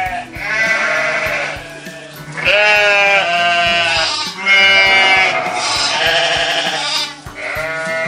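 Sheep bleating: a run of long, wavering bleats, about five, one after another with short pauses between them.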